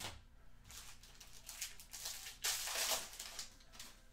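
Rustling and crinkling as trading-card packs and cards are handled, in a string of short scratchy bursts with the loudest, longest burst about two and a half seconds in.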